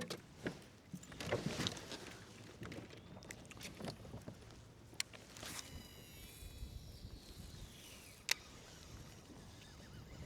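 Faint clicks and knocks from gear being handled in a kayak, over a low wind rumble. A single sharp click comes about eight seconds in.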